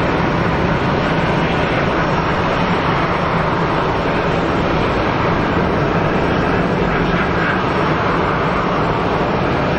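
Jet engines of an Airbus A320-family airliner running at taxi power, a steady, even noise with a slight swell near the end.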